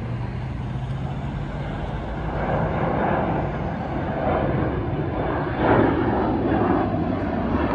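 Jet airliner climbing after takeoff: a steady rumble of turbofan engines that grows somewhat louder partway through.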